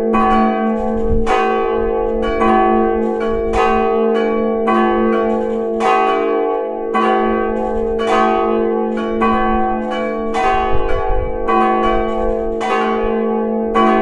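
Three swinging bronze church bells, cast by the Fischer Brothers of Trnava and tuned roughly F♯, G♯ and C♯, ringing together in full peal. Clapper strikes from the different bells overlap at about two a second over a steady, sustained hum.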